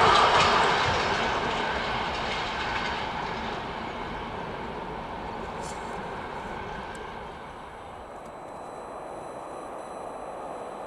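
Freight train's wagons rolling away over the rails, a rumble and clatter of wheels fading steadily over about eight seconds. It then settles to a quieter, steady sound.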